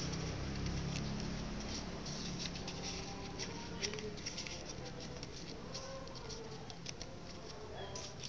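Sheet of paper being folded and pressed into shape by hand: irregular soft crinkles and crackles of the paper.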